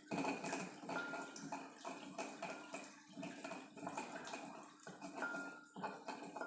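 Cloves and black pepper being ground by hand, in irregular strokes one or two a second.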